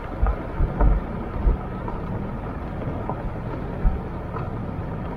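A vehicle driving along, with steady road noise and several low thumps of wind buffeting the microphone, the loudest about a second in.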